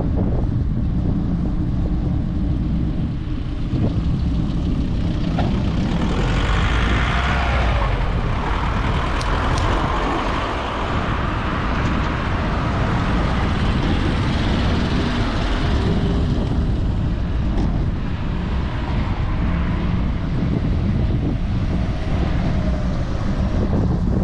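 Steady wind noise buffeting a GoPro's microphone in motion. From about six seconds in, road traffic passes, a swelling tyre-and-engine hiss that fades out again after about ten seconds.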